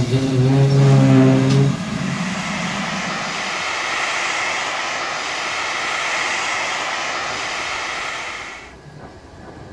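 Steam hissing steadily from a standing GWR Castle-class 4-6-0 steam locomotive, 4079 Pendennis Castle, cutting off suddenly near the end. A low, steady droning tone sounds for the first second and a half.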